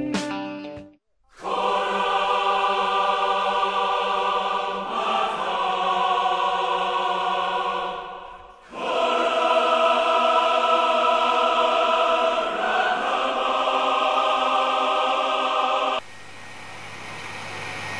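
Background music of long held chords with a choir-like sound, two sustained swells split by a brief break about eight seconds in. It cuts off suddenly near the end, leaving a steady outdoor hiss.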